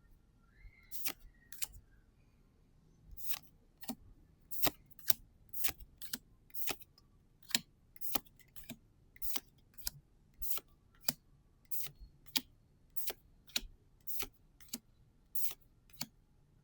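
Trading cards being flipped through one at a time, each card giving a sharp snap or click, about one or two a second at an uneven pace.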